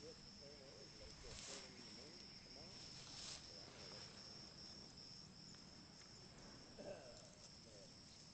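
Faint, steady high-pitched trill of insects in prairie grass, typical of crickets, with a couple of brief rustles.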